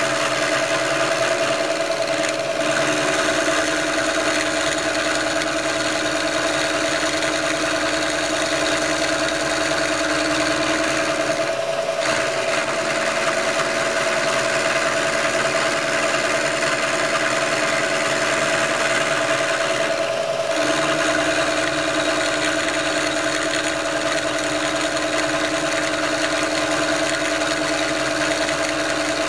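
Vertical milling machine running, its end mill cutting into an aluminium piston, a steady machine hum. Twice, about 11 and 20 seconds in, the lower part of the hum drops out for a moment.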